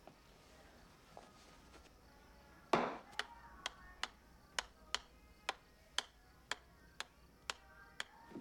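A golf ball being bounced again and again on the face of a wedge. It starts with a louder knock about three seconds in, then goes on as a sharp, even click about twice a second.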